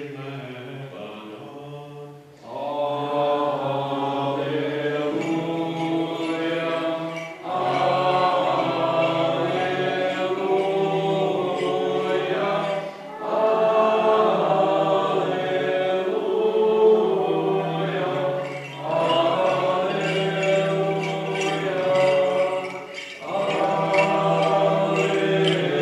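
A group of voices singing a Byzantine-rite liturgical chant in long phrases, with brief pauses for breath between them. The singing begins a couple of seconds in.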